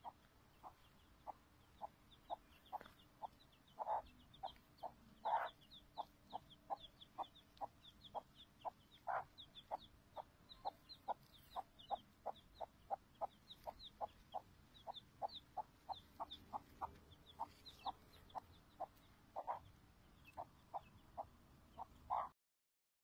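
Domestic chicks peeping: a steady run of short, repeated peeps, about three a second, with fainter, higher-pitched cheeps from another chick over them. The peeping cuts off abruptly near the end.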